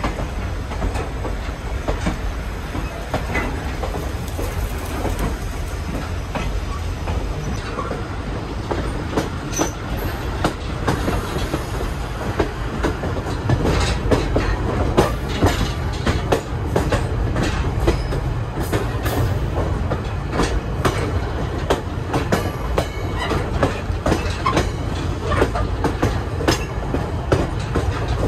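Excursion train's passenger car rolling along the track, heard from aboard: a steady low rumble with irregular clicks and knocks from the wheels and car, which grow busier about halfway through.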